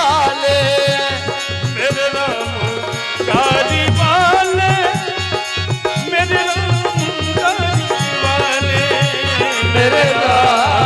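Bhajan kirtan music: a melodic singing voice over a steady hand-drum beat.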